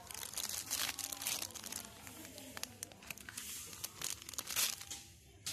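Plastic Haribo gummy-candy bags crinkling in irregular bursts as a hand rummages through them and picks one up, thinning out near the end.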